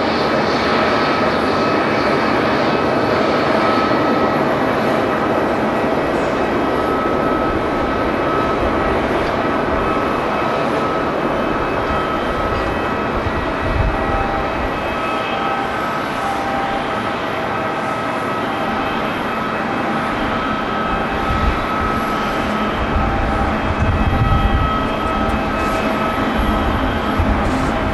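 Boeing 777-300ER's GE90-115B turbofan engines running steadily at taxi power, a loud roar with a steady high whine. Low rumbles swell up now and then, most strongly about two-thirds of the way through.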